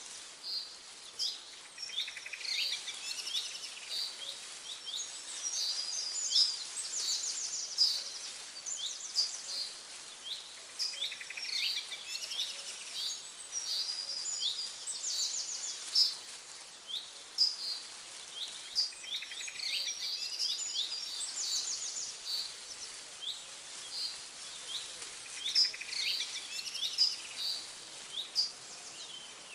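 Several birds chirping and singing, with short sweeping calls and fast trills, over a soft, steady background hiss.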